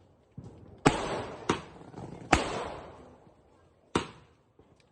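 Multi-shot sky-shot firework cake firing: four sharp bangs, the first three about half a second to a second apart and the last after a gap of about a second and a half, each dying away over about a second.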